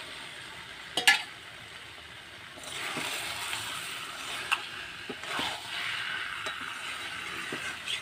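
Marinated duck meat tipped from a steel bowl into a hot kadai of fried masala, with a sharp metal clink about a second in. From about three seconds in comes a steady sizzle as the meat fries, with a spatula scraping and tapping the pan as it is stirred.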